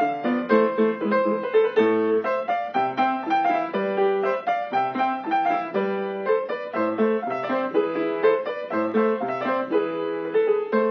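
Upright piano played with both hands: a continuous flow of notes changing several times a second.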